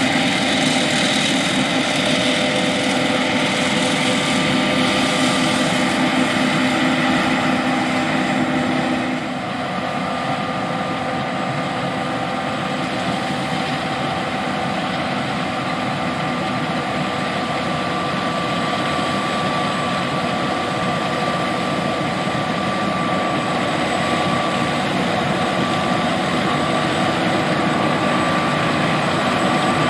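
John Deere S780 combine harvester running steadily under load while harvesting, its diesel engine and threshing machinery giving a constant drone with whining tones. About nine seconds in the level drops slightly and the whine changes pitch.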